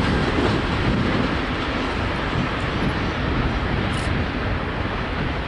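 Loaded grain hopper wagons of a long freight train rolling past on the rails: a steady rumble of wheels on track that eases slightly as the last wagon goes by.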